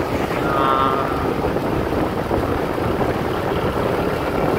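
Wind buffeting the microphone on a moving motorcycle, with the motorcycle's running and road noise underneath. A short high tone sounds about half a second in.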